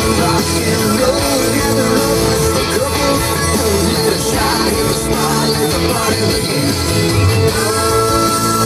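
Rock-and-roll song playing, with guitar.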